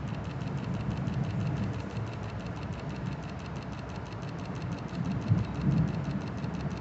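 New Jersey Transit Atlantic City Line train heard from on board: a steady low rumble.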